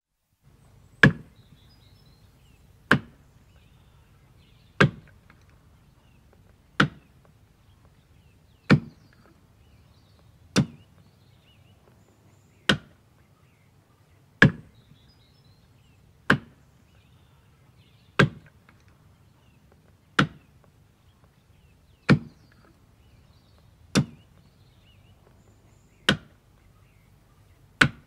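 Axe chopping into wood: sharp, single strikes at a steady pace of about one every two seconds, fifteen in all, over a faint low background.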